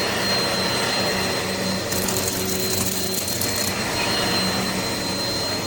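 Eureka PowerSpeed bagless upright vacuum cleaner running steadily with a high motor whine and a low hum. About two seconds in, a clattering rattle sits over it for a couple of seconds.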